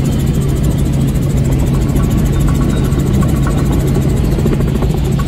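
Helicopter in flight, its engine and rotor running steadily: a loud, even low drone with a constant hum.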